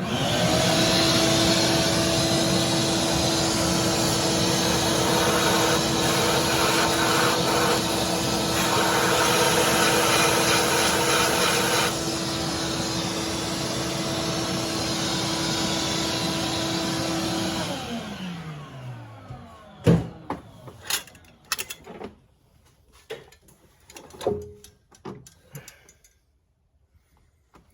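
Shop vac switched on and running steadily with a motor whine, vacuuming drilling debris out of a bolt hole being re-threaded for a Helicoil. It is switched off about two-thirds of the way through and winds down in pitch, followed by a few knocks and clatters.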